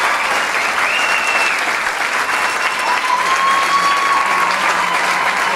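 Theatre audience applauding steadily, with a few long cheers rising over the clapping.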